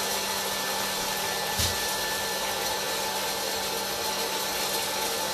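Hot-air popcorn popper's blower running steadily: an even rush of air over a low motor hum, with a single knock about one and a half seconds in.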